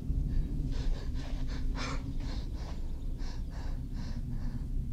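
Quick, heavy breathing, about three breaths a second, over a low steady rumble.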